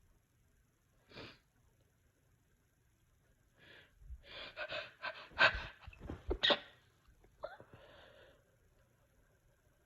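A short breathy sound about a second in, then a run of sneezes from about four to seven seconds in, the loudest two near the end of the run, followed by a softer breathy intake.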